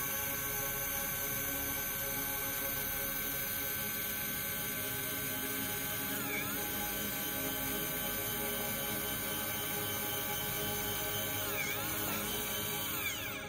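Equatorial telescope mount's right-ascension motor slewing the mount round about 90 degrees, a steady electric motor whine that briefly dips and rises in pitch about six seconds in and again near the end.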